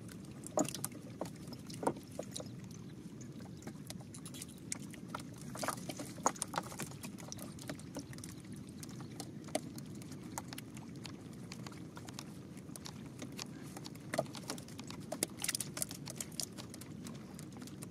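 Water splashing and dripping, with scattered small knocks and splashes over a steady low rushing noise.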